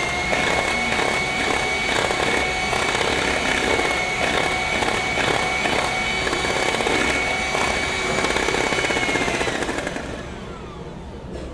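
Electric hand mixer beating eggs and sweetener at high speed, running with a steady high-pitched whine to whip air into the batter. It is switched off near the end and its pitch falls as the beaters spin down.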